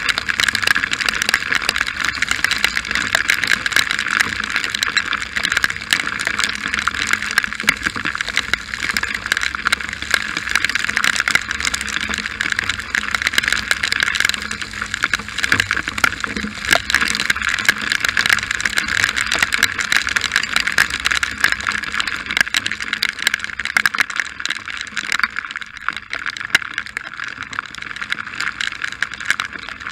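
Heavy rain pelting a moving motorcycle while it is ridden: a loud, dense, steady hiss full of sharp drop taps.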